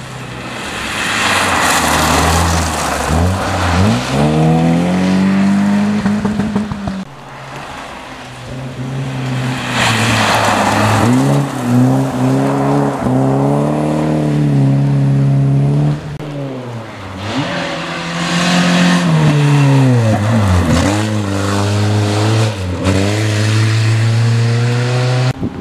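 Rally cars passing one after another at full throttle on a gravel stage, three passes in all. Each engine revs up and drops back through gear changes, with a burst of tyre and gravel noise as the car comes closest. One of the cars is a BMW 3 Series (E36) sedan sliding through a bend.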